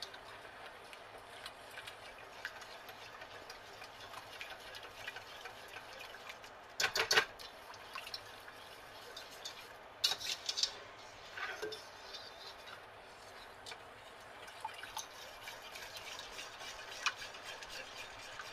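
Wire whisk stirring a thin milk-and-cream roux sauce in a stainless steel saucepan: steady swishing with scattered light metallic ticks, and a few louder knocks of the whisk against the pan about seven and ten seconds in.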